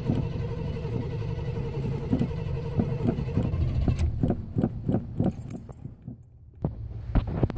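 A vehicle engine cranking on its starter, a steady whine over a low rumble, as it struggles to start. After about four seconds the whine stops and irregular knocks and clicks follow.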